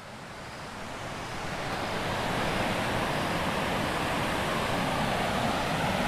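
Water pouring over a small stone weir, a steady rushing sound that swells over the first couple of seconds and then holds even.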